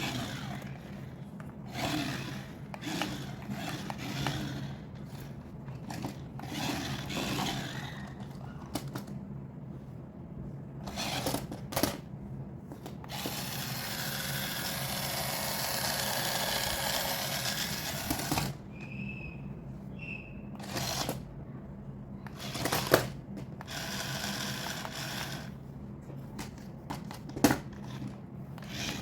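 Clicks and rustles of plastic toys being handled. About halfway through, a small electric toy motor whirs steadily for about five seconds, followed by two short beeps.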